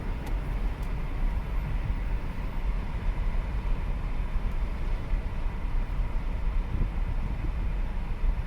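Steady low rumble of road and engine noise inside the cabin of a moving 2015 Chevrolet Impala Limited, driven on a road test after transmission repair work.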